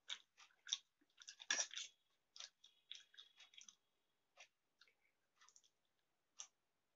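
Close mouth sounds of a person chewing Maggi instant noodles: irregular short wet clicks and smacks, loudest in a cluster about a second and a half in, then sparser.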